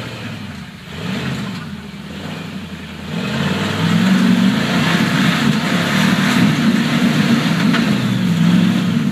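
Rock-crawling buggy's engine revving hard as it climbs a rocky ledge, its pitch wavering up and down. A short rev about a second in, then louder, sustained revving from about three seconds in.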